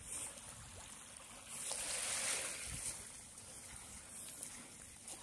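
Shallow seawater washing and trickling, swelling once for about a second around two seconds in, like a small wave running in.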